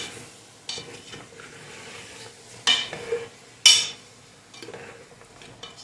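Metal spoon stirring beef chunks in an aluminium pressure cooker and scraping the browned bits off the bottom, with a few sharp clanks of spoon against pot, the loudest a little past halfway.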